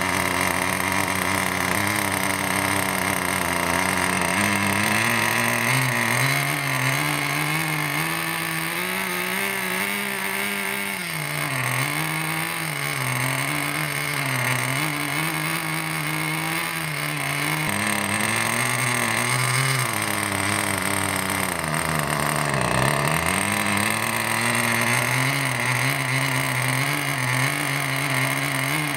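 Nitro RC monster truck's small glow engine running on a stand, its speed rising and falling over and over, with two deeper drops in revs along the way.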